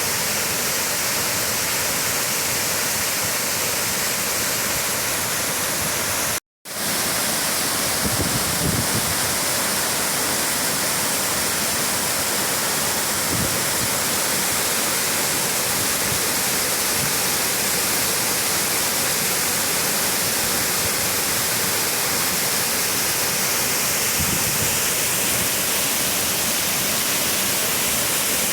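Waterfall's water falling and pouring, a steady, even hissing rush. It cuts out for a split second about six seconds in.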